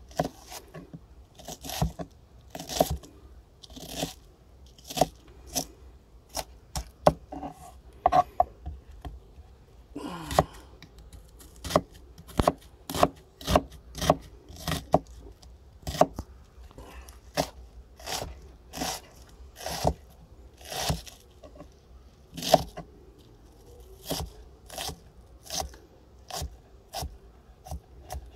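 Mora Bushcraft Black knife dicing an onion on a wooden cutting board. Irregular crunching cuts, each ending in a sharp knock of the blade on the board, about one or two a second.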